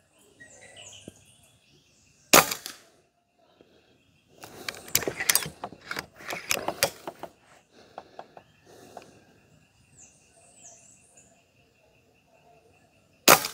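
Karma SLS .22 PCP air rifle firing two shots about eleven seconds apart, each a sharp crack. Between the shots the side lever is worked to cycle the next pellet, a run of metallic clicks and clacks.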